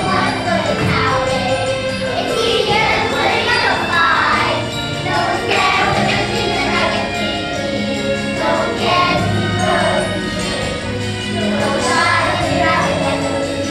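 A group of children singing a song together over an instrumental accompaniment with a steady beat.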